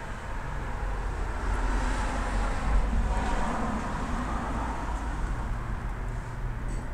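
A vehicle driving past, swelling to its loudest about three seconds in and then fading, over a steady low rumble of wind on the microphone.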